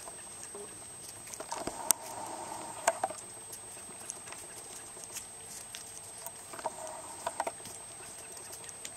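Norrbottenspets puppies' paws pattering and scuffling on wood-chip ground, with scattered small clicks and two sharper taps about two and three seconds in.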